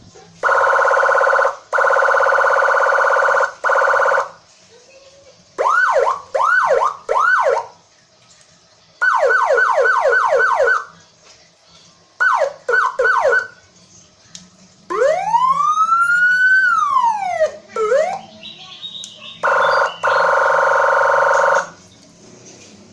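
Electronic police-escort (patwal) siren switching through its tone modes: a loud buzzing horn blast, about four quick rising whoops, a fast run of about seven falling sweeps, three more rising whoops, one slow wail that rises and falls, then the buzzing horn again near the end.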